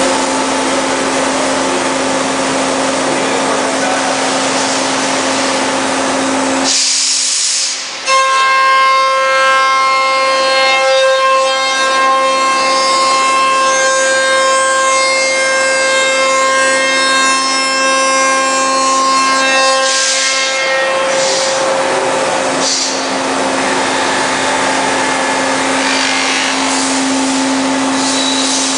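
PADE SPIN 5-axis CNC machining centre running a spindle that cuts and sands the edge of a curved plywood chair-back panel: a steady, loud machine noise. From about a quarter of the way in to about two-thirds of the way through it carries a high, steady whine of several tones, then turns rougher again.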